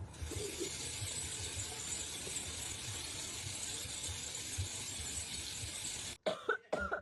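A steady hiss over a low rumble for about six seconds that cuts off suddenly, followed by a few short, pitch-bending sounds near the end.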